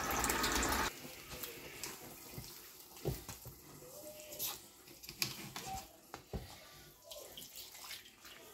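A kitchen tap running into a plastic measuring jug in a steel sink, cut off abruptly about a second in. Then, much quieter, a hand mixing wet flour and jaggery dough in a steel bowl, with soft squelches and a few scattered knocks.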